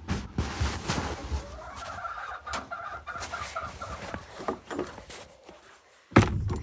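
Chickens clucking in short wavering calls, amid knocks and rustling of handling; a loud bump near the end.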